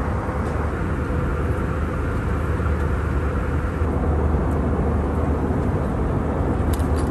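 Steady in-flight cabin noise of an Airbus A321: the continuous drone of engines and airflow, heaviest in the low end. A few light clicks come near the end.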